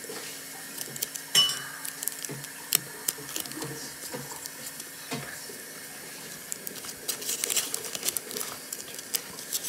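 Clear sticky tape pulled from a plastic dispenser and torn off, with paper crinkling and rustling as it is folded and taped: scattered small clicks and rustles, one sharper click about a second and a half in, and a busier stretch of handling near the end.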